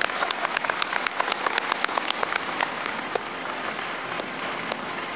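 Auditorium audience applauding: dense clapping that thins out after about three seconds.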